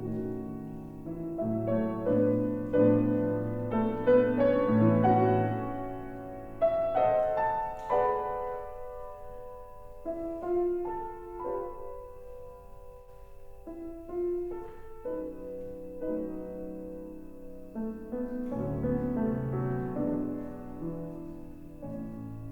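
Piano playing a slow piece of sustained notes and chords, fuller and louder for the first several seconds, then softer and sparser.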